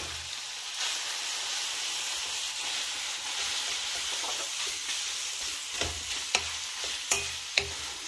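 Ground pork, garlic and rehydrated dried lily flowers sizzling in hot oil in a skillet with a steady hiss, stirred with a wooden spatula. In the second half the spatula knocks against the pan about four times.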